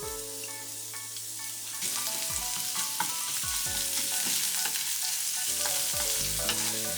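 Garlic and ginger sizzling in hot oil with cumin seeds in a frying pan as they are sautéed and stirred; the sizzle grows louder about two seconds in.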